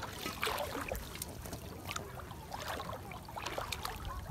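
Shallow water sloshing and splashing with small irregular splashes and trickles, stirred by someone moving in it.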